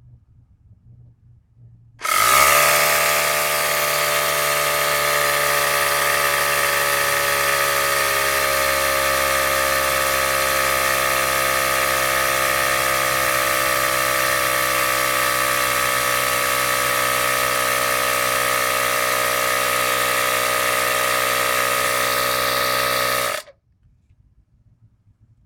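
Homemade air compressor motor running steadily for about twenty seconds, its pitch sagging slightly as it goes; it starts about two seconds in and cuts off abruptly near the end.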